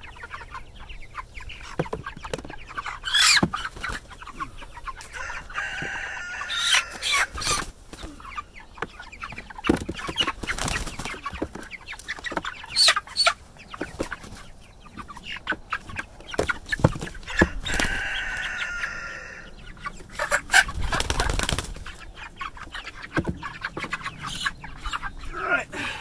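Young broiler meat chickens clucking and calling as they are lifted out of a plastic crate and set down, with scattered knocks and scuffles of the birds being handled. Short bursts of louder calling come twice, about a third of the way in and again past the middle.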